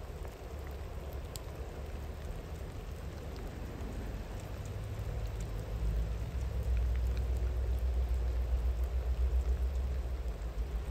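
Steady rain with scattered drips, under the low rumble of a distant train that swells about halfway through.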